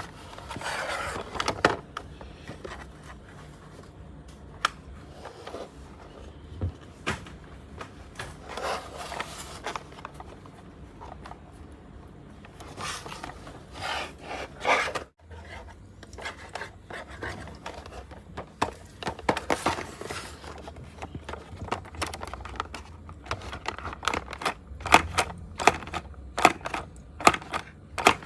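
Toy packaging being handled and opened: rustling and scraping, with scattered clicks and taps.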